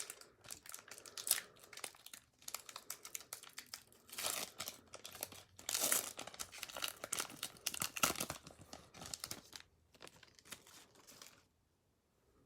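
Foil Pokémon Hidden Fates booster pack wrapper being crinkled and torn open, an irregular run of crackling that stops about a second before the end.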